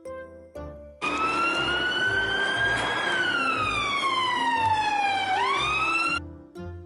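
Police car siren: a wailing tone that rises for about two seconds, falls slowly for about two more, then sweeps sharply up again and cuts off, over light children's background music.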